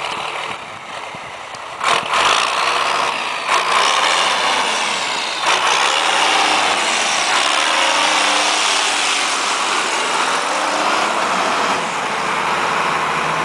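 1984 Ford 8210 tractor's six-cylinder diesel engine, fitted with a turbocharger from a Ford TW25, running under load as the tractor drives, its pitch rising and falling with the throttle. There are a few short knocks in the first half, and the engine settles to a steadier, lower note near the end.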